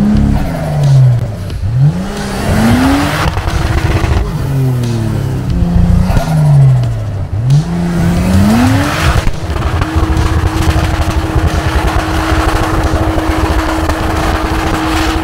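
Off-road 4x4's engine revving, its pitch dropping and climbing twice, then held at high revs for about six seconds. Tyres churn through snow underneath with a loud rushing noise.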